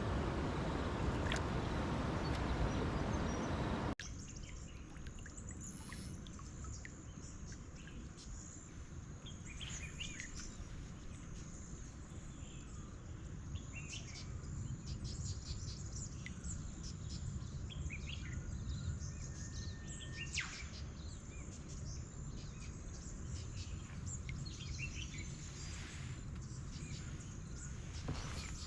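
Wild birds chirping and calling in short, scattered notes over a quiet outdoor background. Before them, about four seconds of loud rushing noise stops abruptly.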